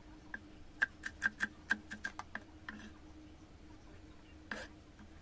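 Cleaver chopping shallots on a wooden cutting board: a quick run of about a dozen light knocks over two seconds, then a single knock near the end.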